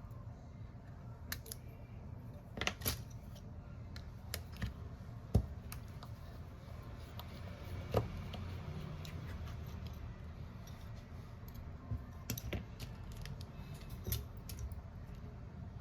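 Small hand tools and parts clicking and tapping on a repair bench, a dozen or so scattered sharp ticks over a steady low hum.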